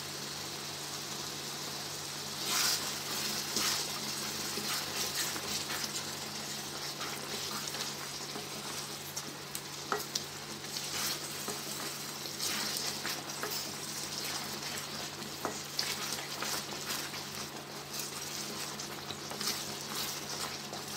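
Cooked-down tomato thokku sizzling in oil in a pan as salt is stirred in with a spatula. There is scraping and occasional light knocks of the spatula on the pan, and the stirring gets busier about two and a half seconds in.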